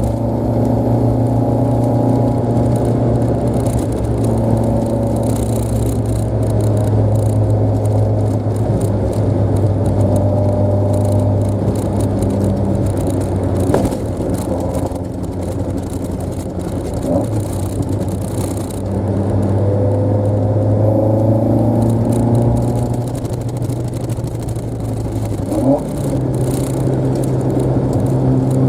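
Toyota AE86's 4A-GE twin-cam inline-four running while the car is driven, its note rising and falling with engine speed. There are a few short knocks, the clearest about 14 s and 26 s in.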